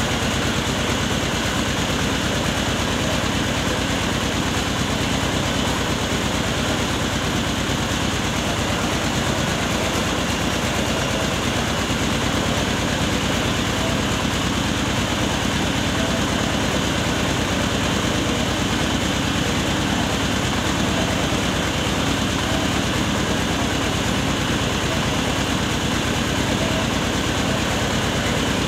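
Truck-mounted mobile rice mill running steadily, its engine driving the hulling machinery as paddy is milled.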